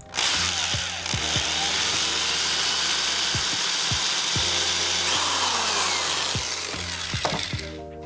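Power drill with a 3/16-inch bit boring a hole through a wood panel, starting abruptly and running steadily for about seven and a half seconds before dying away near the end.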